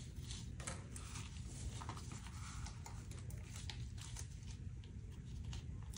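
Gloved hands handling the layers of a shot-through homemade armor plate: soft rustling of fabric and scattered light taps and scrapes, over a steady low hum.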